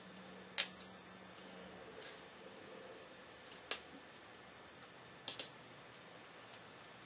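Lego bricks clicking as they are pressed together by hand: four sharp clicks about a second and a half apart, the first the loudest and the last a quick double click.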